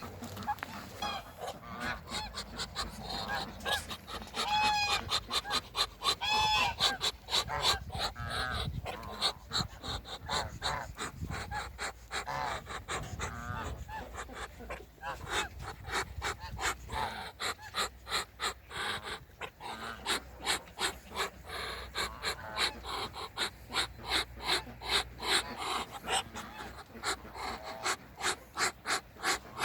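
A group of domestic waterfowl, geese and ducks, calling continuously with rapid, repeated honks and quacks.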